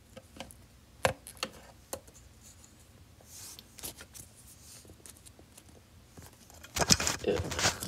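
Handling noise of plastic toy figures being moved about on a paper play set: scattered light taps and clicks, then a louder burst of rustling and knocking near the end.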